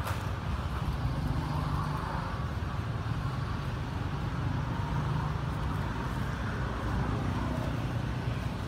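Steady low rumble of outdoor background noise with an even hiss above it, unchanging throughout.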